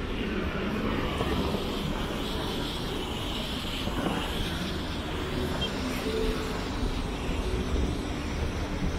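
Steady city background noise: a low, even rumble of distant road traffic.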